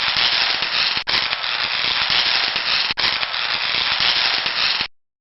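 Loud, even crackling noise like static that cuts out briefly twice, at about one and three seconds in, and stops abruptly near the end.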